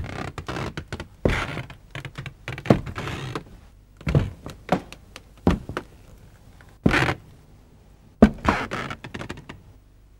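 Irregular knocks and thuds, some followed by a brief scraping or rustling, stopping near the end.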